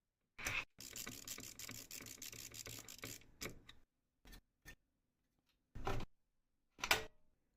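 Handling noise of computer parts being fitted: a rapid ticking rattle lasting about two and a half seconds, then a handful of separate sharp clicks and snaps.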